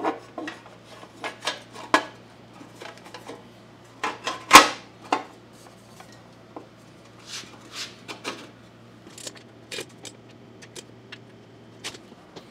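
Plastic blower housing of a Kawasaki FJ180V mower engine clicking and knocking as it is pressed and rocked down over the flywheel, with one louder knock about four and a half seconds in. The cover will not sit flush because the flywheel is not drawn fully down.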